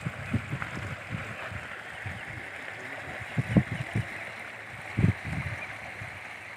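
Steady rush of flowing water, with a few short, low thumps, strongest around the middle and about five seconds in.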